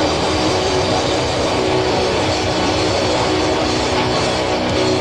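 Loud, dense crust-punk music led by heavily distorted electric guitar, starting at full volume all at once.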